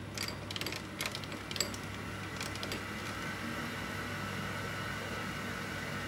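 Small metal lathe running, its chuck spinning a thin rod being machined into a new worm shaft for a clock's striking train. A quick series of sharp clicks and ticks in the first three seconds gives way to a steady running hum with a higher whine, slightly louder.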